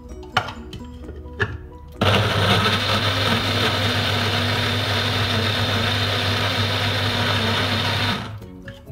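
Electric kitchen blender grinding a curry spice paste: two knocks, then the motor runs loud and steady for about six seconds before switching off near the end.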